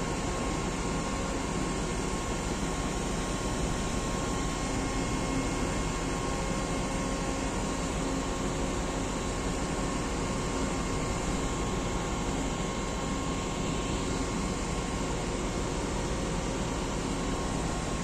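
Steady, even machinery hum with a faint high whine, unchanging throughout.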